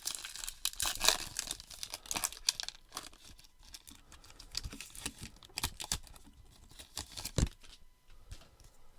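A baseball-card pack's wrapper being torn open and crinkled, with the cards rustling as they are handled. The crinkling is densest in the first three seconds, and there is a single knock about seven and a half seconds in.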